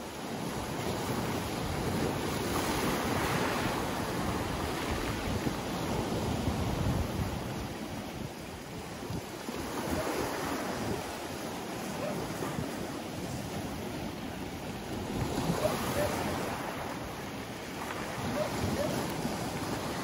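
Sea surf breaking around boulders and washing up over a pebble beach. The wash swells and fades three times, a surge every six seconds or so.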